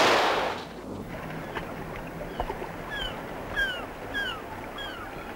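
A loud, sudden burst of noise at the start that dies away over about a second, followed by a steady hiss of harbour ambience. From about three seconds in, a bird gives short, falling calls about every half second.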